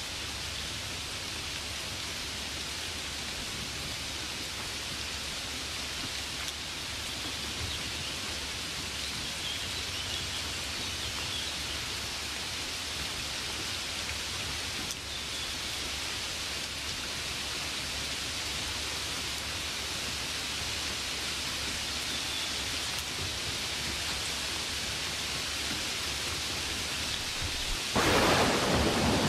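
Steady hiss of rain falling, with a low rumble underneath. Near the end a sudden, louder burst of noise comes in.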